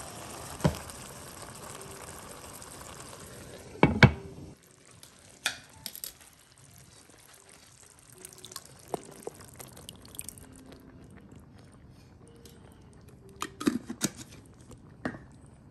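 A skillet of ground-beef and tomato goulash simmering with a steady hiss, which turns quieter after about four seconds. A utensil and container knock and clack against the pan: a cluster of knocks about four seconds in, scattered clicks after that, and more knocks near the end as tomato sauce is poured into the pan.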